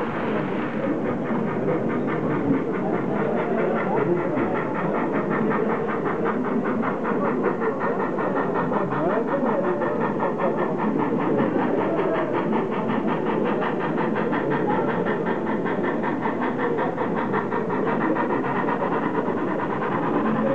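Model train running on a layout: a steady mechanical whir with fast, even ticking.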